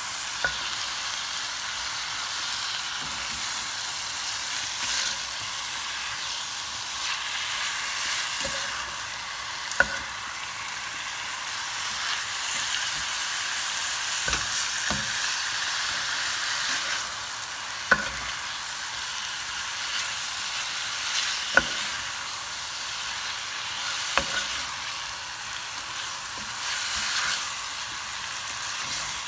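Chunks of meat frying and sizzling in a nonstick pan while a slotted spatula stirs them. The spatula knocks sharply against the pan a few times.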